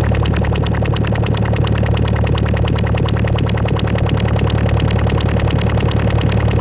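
Eurorack modular synthesizer patch, with the Control Forge module run as a complex oscillator, playing a steady low buzzy drone. The drone has a fast, even pulsing flutter over it.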